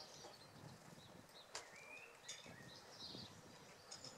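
Faint outdoor ambience: scattered bird chirps with a brief whistled glide, a couple of sharp clicks, and a low rumble from a steam tank engine approaching with its train.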